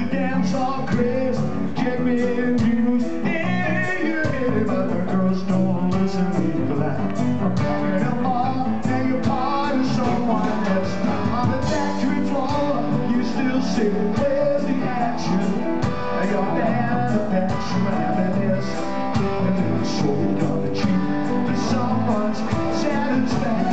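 Live rock band playing a mid-tempo song: Fender Jazzmaster electric guitar and drums, with a male voice singing over them.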